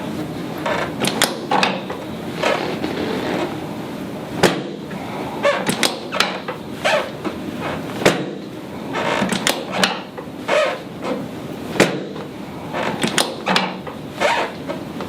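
Chiropractic drop-piece table clacking during prone adjustments: a run of sharp knocks and clacks at irregular intervals, several much louder than the rest.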